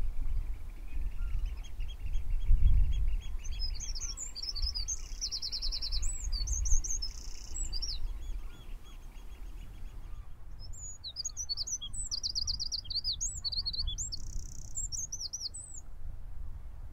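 A small songbird singing two high, twittering song phrases with fast trills, each about five seconds long and a couple of seconds apart, over a low background rumble.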